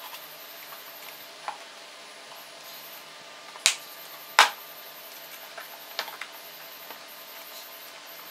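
Hands working the plastic air-conditioning case of a Proton Inspira: two sharp plastic clicks about two-thirds of a second apart in the middle, with a few lighter clicks and taps before and after, over a steady low hiss.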